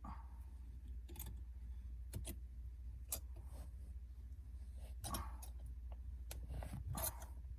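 C-clamp being set and screwed tight on a car's shift knob: scattered light clicks and knocks, over a low steady hum.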